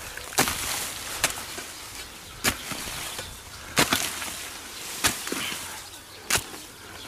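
Short-handled, broad-bladed hoe chopping into dry soil and straw: six sharp strikes, a little over a second apart.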